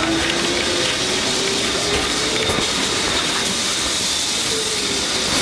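Lisbon tram running along its rails, heard from on board: a steady rumble and hiss of wheels on track, with a motor whine that slowly rises in pitch through the first half.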